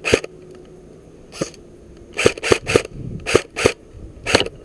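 Airsoft rifle firing single shots, about eight sharp cracks at an irregular pace, some in quick runs of two or three.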